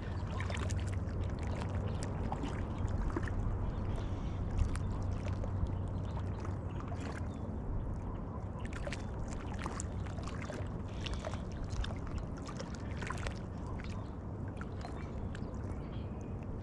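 Steady low wind rumble on the microphone, with small waves lapping at the shoreline and scattered soft ticks.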